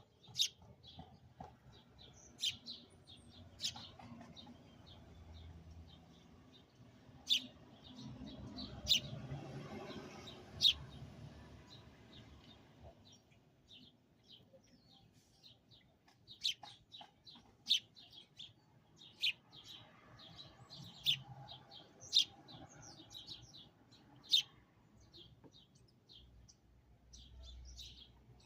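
A sparrow chirping outside a window: short, sharp single chirps, repeated irregularly, some loud and close. A low rumble swells and fades about a third of the way through.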